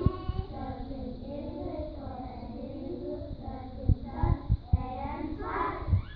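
A group of young children singing together in unison, with a few dull thumps about four to five seconds in.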